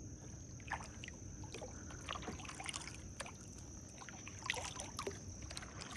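Kayak paddle dipping into still water, with drips, small splashes and trickles coming at irregular moments.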